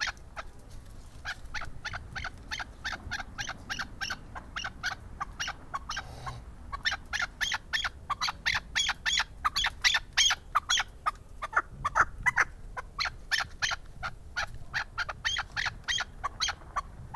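Caged chukar partridge calling: a long, fast run of sharp chuck notes, several a second, with short breaks about a second in and near six seconds.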